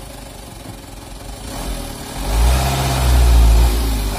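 Mitsubishi Canter truck's diesel engine idling, then revved hard about two seconds in and held at high revs as the loaded palm-fruit truck strains to climb out of a muddy rut.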